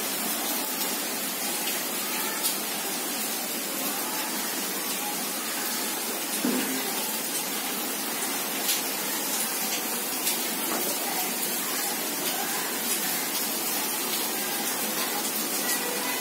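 Heavy monsoon rain falling steadily on paving, plants and a porch roof: a dense, even hiss with the odd sharper drop or splash.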